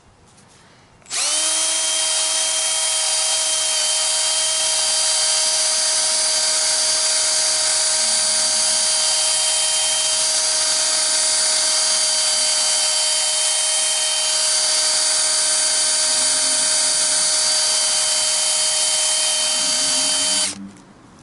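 Cordless variable-speed drill spinning a foam buffing pad against a faded plastic headlight lens, working in an abrasive polishing compound. The drill runs with a steady whine at a constant speed, starting about a second in and stopping near the end.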